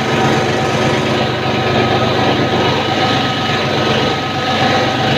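Plastic recycling extrusion line running while PP raffia tape is fed into its force feeder: a continuous machine noise with a low hum and a few constant whining tones from its motors, holding level throughout.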